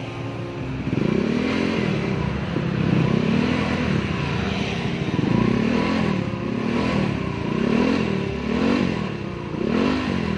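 Suzuki Address scooter's single-cylinder four-stroke engine blipped repeatedly through a stock Honda Vario silencer on a custom header, each rev rising and falling about once a second. The owner calls the note through this silencer quiet.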